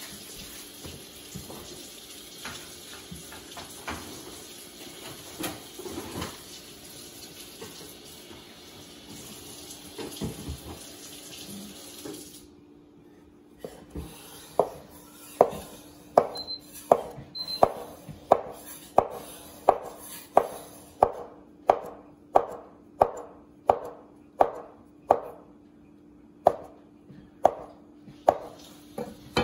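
Cleaver chopping rolled, floured noodle dough on a wooden cutting board: sharp, even knocks about two a second through the second half. Before that, a steady hiss with a few soft knocks.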